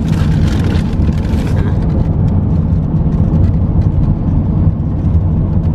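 Steady low rumble of road and engine noise heard from inside a moving car's cabin.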